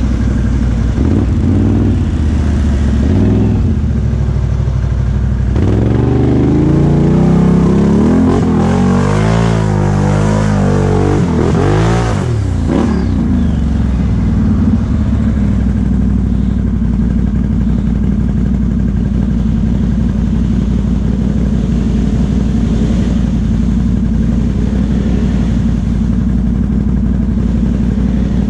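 Can-Am Outlander XMR 1000 ATV's V-twin engine with a Big Gun aftermarket exhaust, running along a trail. Starting about a fifth of the way in, it revs up and down several times for about seven seconds, then settles back to a steady run.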